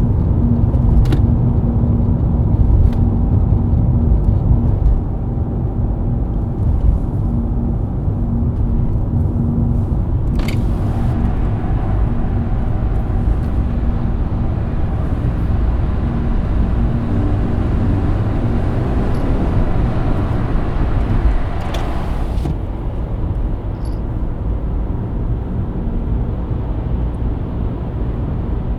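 BMW E90 323i's inline-six engine running at a steady expressway cruise, over low tyre and road rumble. A steady engine drone fades after about five seconds as the level drops a little, and short hissy swells pass about ten and twenty-two seconds in.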